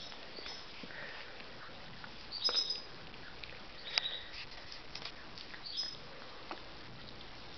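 Small dog sniffing and moving about on a couch close to the microphone, with scattered soft clicks and a few short, faint high squeaks, the loudest about two and a half and four seconds in.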